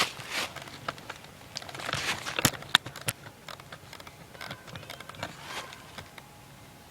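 Rustling and crunching of a person moving on foot, with three sharp clicks about two and a half to three seconds in and fainter scattered ticks after.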